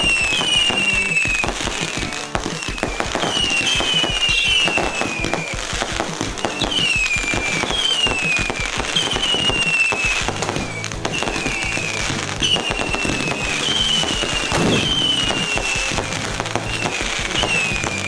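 Many compact fireworks cakes firing together: a dense run of pops and crackles with short whistles falling in pitch about once a second, and a louder bang near the end.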